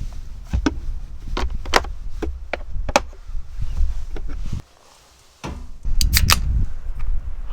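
A series of sharp clicks and knocks, about half a dozen spread over the first three seconds, over a low rumble. There is a brief drop to near silence around the middle, then a quick cluster of clicks about six seconds in.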